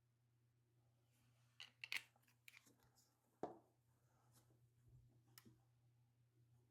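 Near silence with a faint low hum, broken by a few faint, sharp clicks and taps of small parts and tools being handled, the loudest about two and three and a half seconds in.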